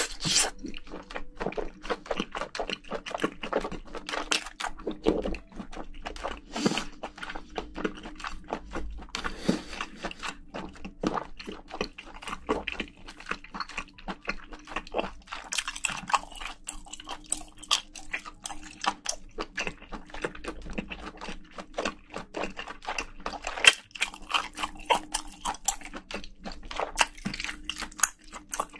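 Close-miked chewing of a mouthful of spicy braised seafood (haemul-jjim): a dense, irregular stream of wet crunches, clicks and smacks.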